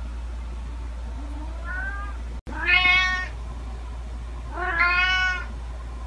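Kitten meowing: a faint rising meow, then two loud, drawn-out meows about two seconds apart.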